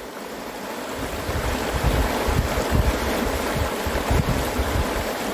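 River rapids rushing steadily, building a little after about a second, with an uneven low rumble of wind on the microphone.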